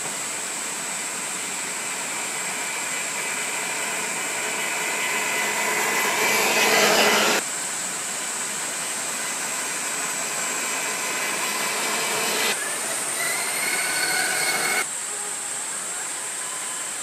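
Axial SCX6 1/6-scale RC crawler's electric motor and geared drivetrain whirring as it drives over a dirt trail, over a steady high hiss. The whir grows louder as the truck nears and cuts off abruptly about seven seconds in. Between about twelve and fifteen seconds the motor whine rises in pitch, and it stops suddenly.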